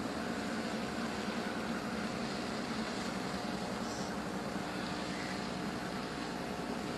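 Sprint car engines running at a slow, even pace: a steady low drone with no revving.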